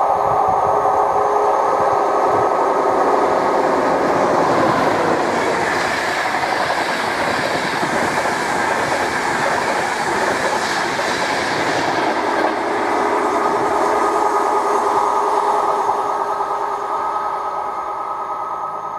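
InterCity 225 express trains (Class 91 electric locomotive with Mk4 coaches) running past at speed: a loud, steady rush of wheels on rail that eases off over the last few seconds.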